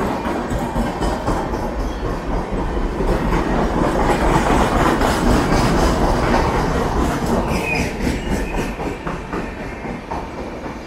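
Passenger train coaches rolling past at speed, the wheels clattering rhythmically over rail joints under a steady rumble that swells in the middle and eases near the end. A brief high squeal sounds about eight seconds in.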